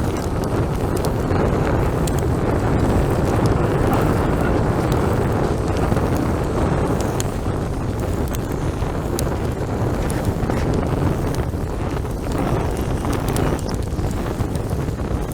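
Steady wind noise buffeting the microphone, a dense low rumble, with a few faint clicks.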